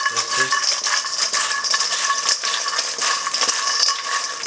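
Crisp deep-fried chapati chips being tossed by hand in a hammered stainless-steel bowl: a continuous dry rattle and scraping of chips against the metal, with the bowl ringing faintly.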